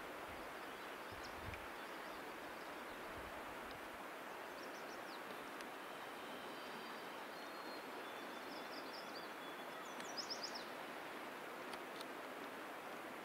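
Steady outdoor background hiss with faint bird chirps a few times, the clearest a quick run of chirps about ten seconds in.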